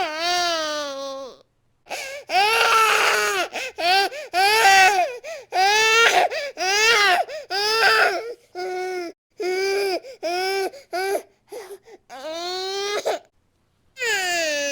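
A baby crying hard: a run of short, loud wails, each rising and falling in pitch, broken by brief gaps for breath.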